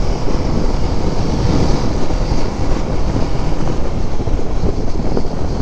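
Steady wind rush and low rumble of a KTM Duke 390 motorcycle being ridden along a road, picked up by a camera on the moving bike.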